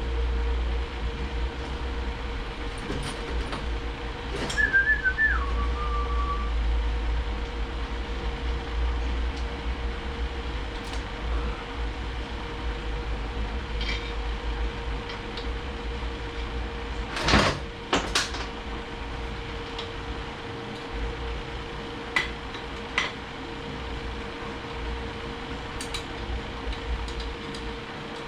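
Steady workshop hum with scattered clicks and clinks of transmission parts being handled on the bench. A short whistle that drops in pitch comes about five seconds in, and two louder knocks come a little past the middle.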